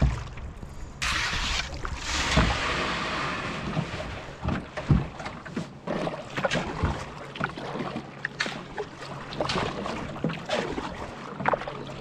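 Paddle strokes in calm water: the blade dipping and pulling, with splashes and a run of drips off the paddle.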